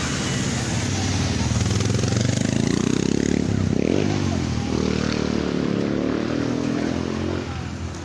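Road vehicle engine accelerating, its pitch climbing, dropping once about four seconds in, then climbing again before it fades, over steady city traffic noise.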